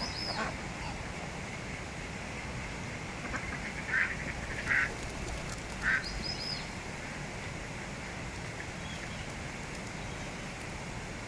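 Ducks quacking: three short harsh calls about four to six seconds in, with a few high, thin calls near the start and again a little later, over a steady background hiss.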